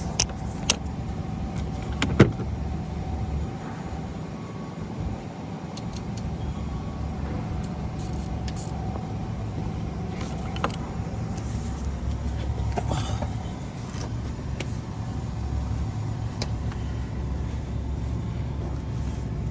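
Scattered metallic clicks and clinks of hand tools working the starter bolts under a car, over a steady low rumble.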